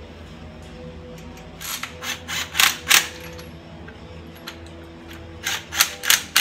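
Power ratchet run in short trigger bursts, about five in quick succession and then, after a pause, four more near the end, threading a new rocker stud into the V8's cylinder head. Background music plays steadily underneath.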